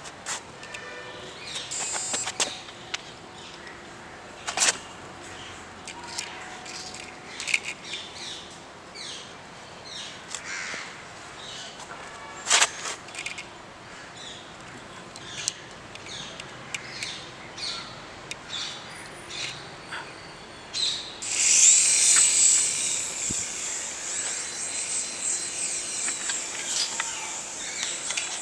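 Birds chirping with a few sharp clicks. About three-quarters of the way through, a small electric toy helicopter's motor and rotors start up with a high whine, which then becomes the loudest sound.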